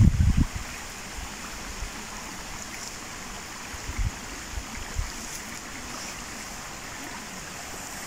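Shallow stream running over and between rocks, a steady trickling rush of water. A few brief low thumps on the microphone come near the start and about four and five seconds in.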